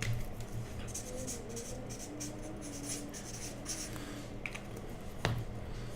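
Faint intermittent scratching and rustling of hands working at a cardboard trading-card box, with one sharp knock about five seconds in.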